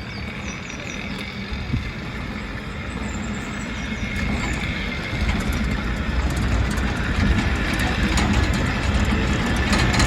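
Water-powered cliff railway car running down its steep track: a steady rumble of wheels on rails that grows louder, especially after about halfway, with frequent small clicks and rattles.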